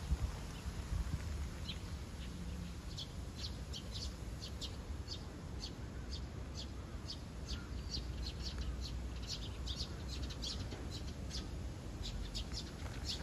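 Small birds chirping: short, high chirps, several a second, starting about two seconds in and going on throughout.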